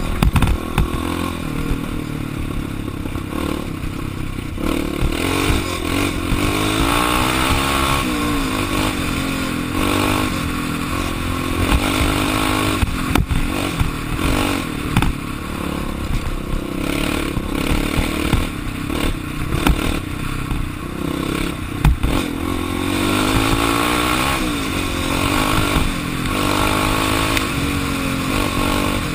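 Kawasaki KFX400 quad's single-cylinder four-stroke engine, heard onboard, revving up and falling back again and again as it is ridden hard over a rough dirt track. The chassis clatters over bumps, with a couple of sharp knocks.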